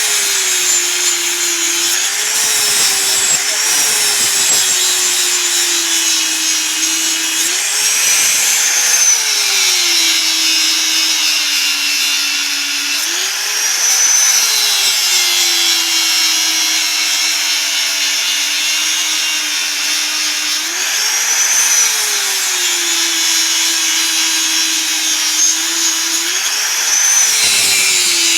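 Electric grinder grinding the steel of a knife blank. The motor's pitch sags as it is pressed into the work and rises briefly each time the pressure eases, several times over, under a steady high hiss of abrasive on metal.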